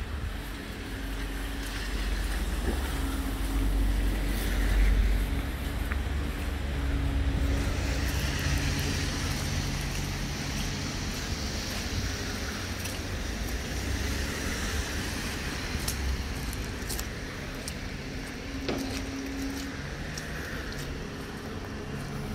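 City street traffic: motor vehicle engines running with a steady low rumble and a droning hum that fades in and out.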